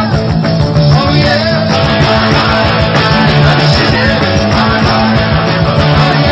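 Live rock band playing an uptempo rock-and-roll number on electric guitars, bass and drums, with a steady driving beat.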